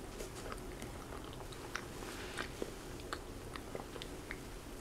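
A person chewing a mouthful of banana: faint, irregular small clicks and smacks of the mouth.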